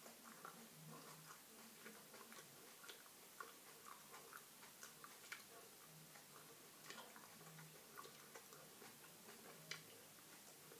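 Faint, irregular mouth clicks and soft chewing from a person eating a chilli pepper, over near-silent room tone.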